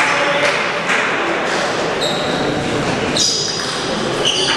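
Table tennis balls ticking on tables and bats, a handful of sharp knocks spaced about a second apart, in a reverberant sports hall with voices in the background.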